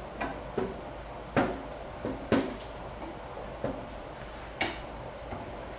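Wrench being worked onto the blade nut under a riding mower's deck: a handful of sharp clicks and knocks at irregular intervals as it is fitted into place.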